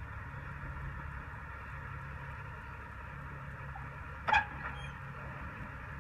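Tipper truck's diesel engine running steadily at a distance while the tipping body rises to dump its load. About four seconds in, a single short, sharp, loud sound cuts through.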